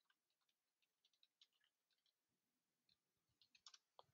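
Near silence, with faint scattered clicks of typing on a computer keyboard and a couple of slightly sharper clicks near the end.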